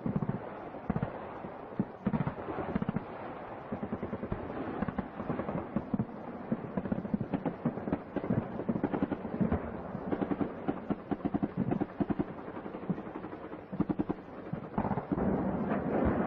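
Gunfire: rapid, irregular volleys of sharp cracks, denser and louder from near the end, on a narrow-band old film soundtrack.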